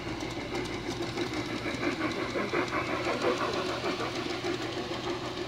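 G-scale model train running along garden railway track: a steady mechanical hum of the locomotive's drive and wheels on the rails, louder as it passes close by two to three seconds in.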